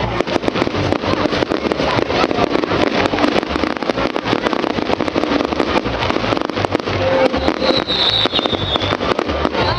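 Fireworks display: dense, rapid crackling and popping of many fireworks at once, with low thuds among them. A high whistling tone enters about three-quarters of the way through and again near the end.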